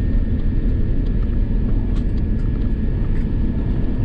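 Cabin noise of an Airbus A350-1000 on its take-off, heard from a window seat: the Rolls-Royce Trent XWB engines and airflow make a loud, steady low rumble, with a thin steady whine above it and small scattered rattles of the cabin fittings.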